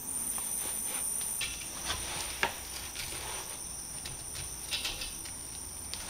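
Steady high-pitched hiss of compressed air leaking from a Campbell Hausfeld air compressor's pressure regulator, which is letting air out. Scattered light clicks and taps from hands working the regulator and gauge fittings.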